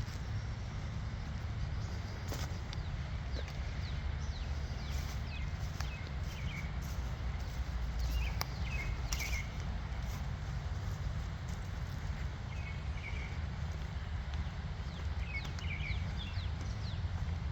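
Outdoor ambience: a steady low rumble with scattered short bird chirps and a few light clicks or footsteps.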